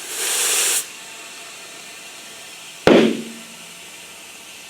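Compressed air hissing from an air line into a motorcycle tyre, stopping under a second in. About three seconds in, a single sharp bang with a short ring: the tyre's bead popping out onto the rim as it seats under pressure.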